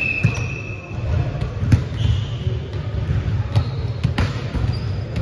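Volleyball rally sounds echoing in a gym: several sharp smacks of the ball being hit, a few high squeaks of sneakers on the hardwood floor, over a steady low rumble of the hall.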